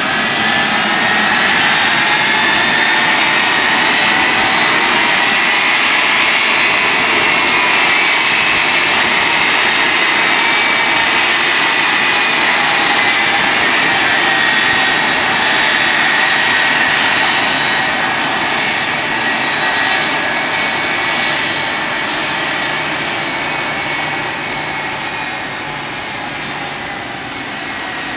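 Boeing C-17 Globemaster III's four Pratt & Whitney F117 turbofans running at taxi power as the aircraft rolls past: a loud, steady jet roar with a high whine whose pitch bends slowly. It fades somewhat over the last several seconds.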